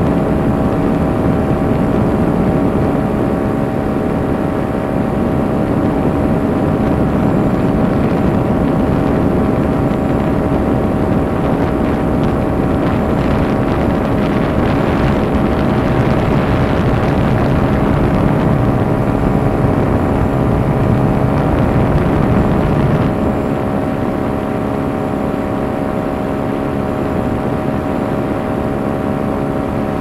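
Powered paraglider's engine and propeller running steadily in flight, a constant droning tone over a rush of noise. It grows a little louder and brighter in the middle, then eases off slightly about 23 seconds in.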